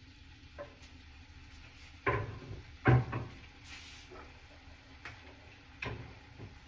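Kitchen handling: a few scattered knocks and clunks of utensils and cookware being handled, the two loudest close together about two and three seconds in.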